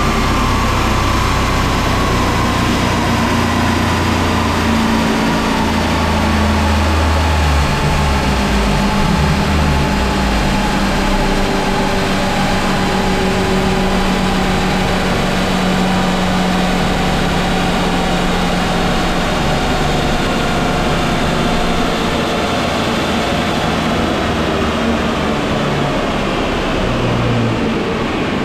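Turbocharged Volvo B230 FK four-cylinder engine running loud and sustained on a chassis dynamometer during a power run, its boost raised to about 0.8 bar by a T-piece in the wastegate line.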